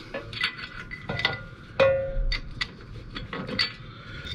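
Metal clicks and clinks of drum parking brake hardware being handled and fitted into place, with one louder ringing metallic clank about two seconds in.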